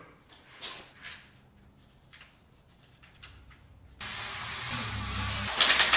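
A steady hiss starts abruptly about four seconds in. Near the end it is joined by a louder, rapid rattling.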